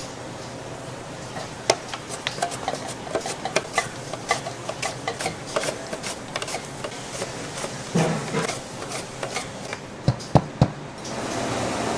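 Kitchen utensil sounds: a long run of quick light clicks and taps, then a few louder knocks about ten seconds in, and a steady rushing noise starting near the end.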